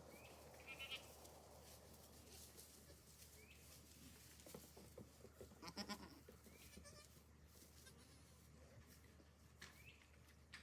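Faint goat bleating: a short call about a second in and a louder bleat just before six seconds, over a quiet background with a few small chirps.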